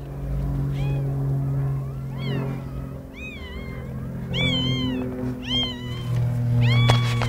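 Newborn puppies crying: about eight short, high, arching squeals, some in quick pairs, loudest in the second half. Background music with long held low notes runs underneath.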